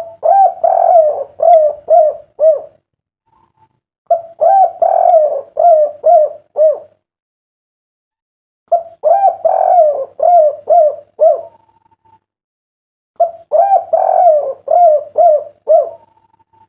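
Spotted dove (derkuku) cooing: four repeated phrases of several short, rolling coo notes each, one about every four and a half seconds, the song type hobbyists call "kuk 3".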